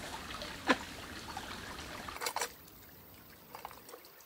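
Small bush creek trickling over stones. About halfway through the water sound gives way to a quieter spell with a few light knocks as a metal cook pot is handled.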